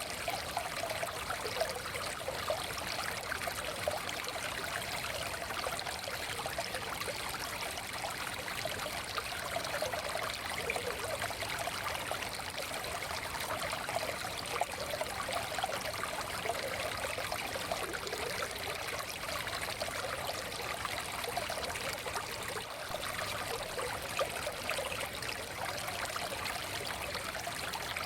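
A small stream flowing steadily over stones, a continuous babbling and trickling wash of water.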